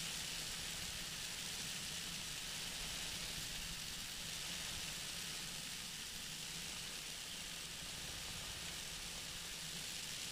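Steady rush of airflow over a flexwing microlight trike, with the trike's engine droning steadily underneath.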